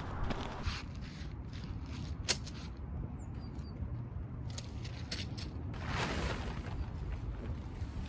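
Nylon tent fabric rustling and crinkling as a tent is pulled from its strapped stuff sack and shaken out, with a couple of sharp clicks and a louder swish about six seconds in. A steady low wind rumble on the microphone runs underneath.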